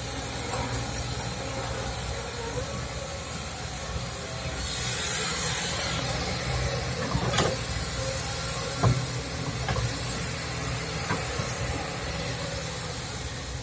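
Kobelco SK200-8 excavator's diesel engine running steadily, with a burst of hiss about five seconds in and a few sharp knocks in the second half.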